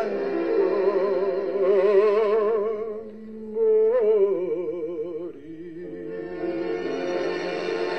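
Tango song near its close: a singer holds long notes with wide vibrato over the orchestra, with two brief dips in between. It then settles into a sustained closing chord.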